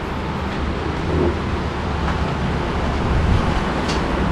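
Steady low background rumble, with one faint click near the end.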